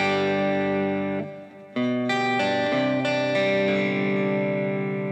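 Electric guitar played through a Kemper profiler into the Kemper Cab speaker with its Kemper Cone function switched off, giving a more veiled tone with less definition. A chord rings and fades about a second in, then a few more chords are struck about two seconds in and left ringing.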